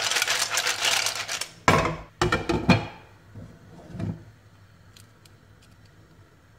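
Steamed mussels clattering in their shells as a frying pan of them is tilted and shaken on a gas hob, then three loud knocks of cookware being set down about two seconds in. After that, a few faint clicks of a mussel shell handled and opened by hand.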